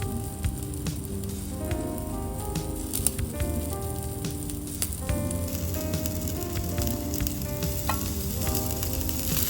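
Pork and onion skewers sizzling on an electric shichirin grill, with scattered crackles and pops of fat, over soft background music.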